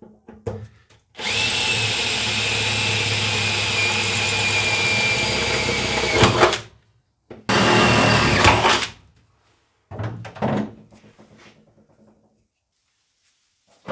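Cordless drill boring through a car's sheet-metal floor pan: a steady high whine for about five seconds, then a second, shorter run of about a second and a half. A few light knocks follow.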